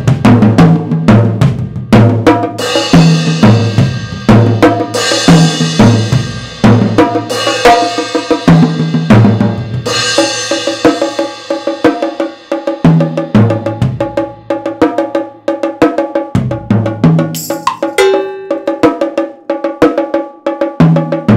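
Multi-percussion solo played with drumsticks on tom-toms, bongos and a suspended cymbal: fast, driving strokes across the drums, with a cymbal crash about every two and a half seconds in the first half, then drums alone.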